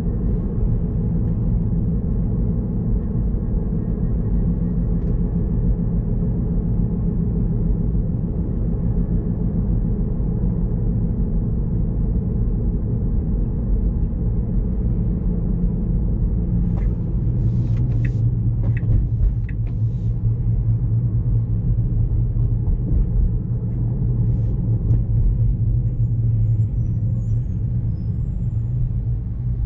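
Steady low road and tyre rumble heard inside the cabin of a moving Tesla Model 3, an electric car with no engine note. A short cluster of sharp clicks and faint squeaks comes about two-thirds of the way through.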